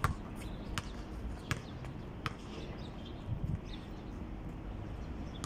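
Basketball dribbled on a concrete court: four even bounces about three-quarters of a second apart in the first half, over a steady low rumble.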